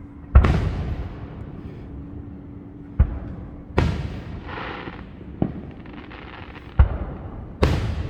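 Aerial fireworks bursting: six sharp booms about a second or two apart, each trailing off in a rolling echo, with a crackling hiss after some of the bursts.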